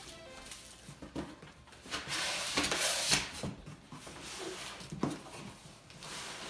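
A large cardboard box being opened and its contents handled: rustling and scraping of cardboard and packaging, with several knocks and a sharper knock near the end.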